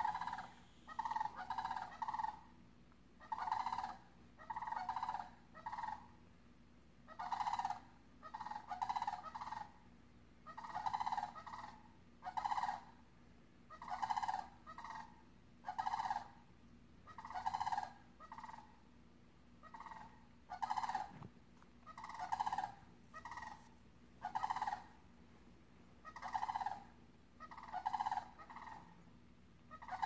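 Sandhill cranes giving loud, rattling calls over and over, a call every second or two, often in quick pairs or triplets.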